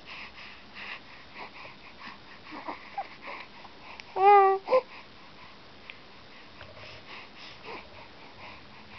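Young baby cooing: a few faint soft sounds, then about four seconds in one clear, held coo with a slight upward lilt, followed at once by a short second one.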